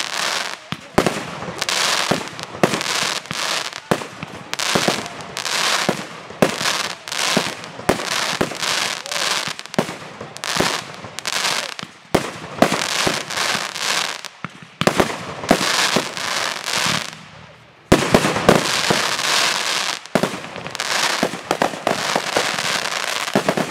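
Aerial firework shells bursting in quick succession, many sharp bangs close together. There is a brief lull about seventeen seconds in, then a denser barrage.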